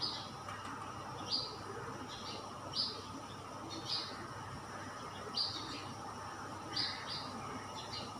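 A small bird chirping in short, high calls, one or two every second or so, over a steady background hiss.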